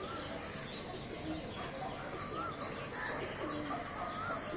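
Birds calling over a steady low background: a few short, wavy whistled notes, with some lower, deeper notes between them.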